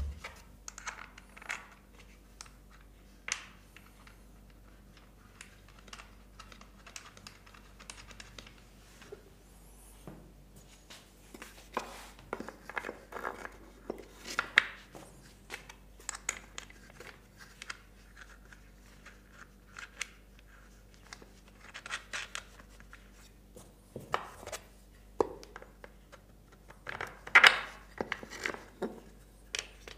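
Irregular clicks, taps and scrapes of wooden leg pieces and small bolts, washers and nuts being handled and fitted loosely by hand into a wooden frame, busiest about halfway through and again near the end.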